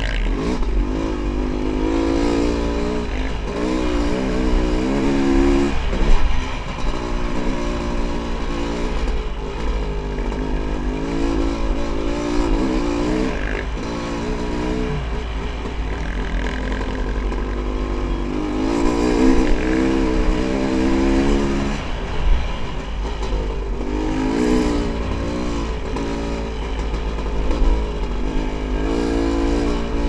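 Honda CR500 two-stroke single-cylinder dirt bike engine, heard from the rider, revving up and falling back again and again as it is ridden along a dirt trail. A steady low rumble of wind on the microphone runs underneath.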